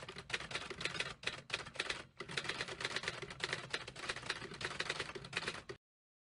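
Typewriter keys clacking in a fast, dense run with a few brief pauses, stopping abruptly near the end.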